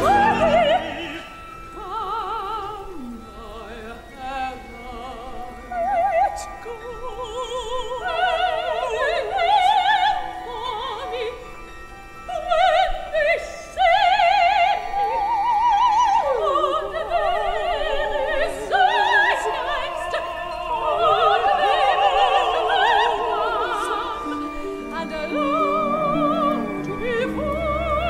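A woman singing an operatic aria in English with a wide vibrato, accompanied by a small instrumental ensemble. Low instruments come in near the end.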